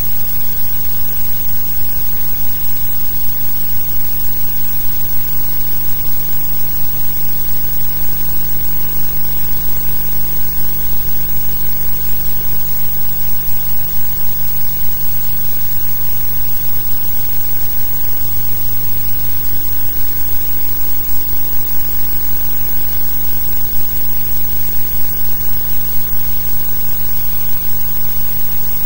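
Loud, unchanging hiss and electrical hum of a blank archive soundtrack, with no other sound in it.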